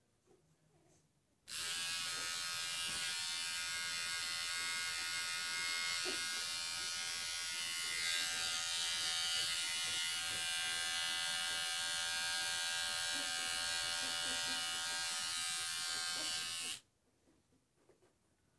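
Small handheld electric pet grooming tool running at a steady pitch. It is switched on about a second and a half in and off near the end.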